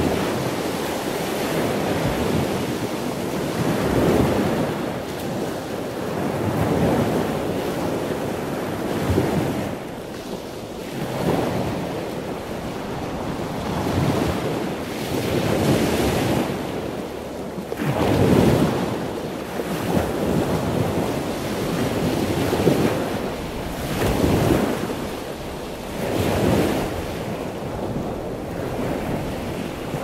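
Ocean waves breaking and washing in, a rush of surf that swells and fades every two to three seconds.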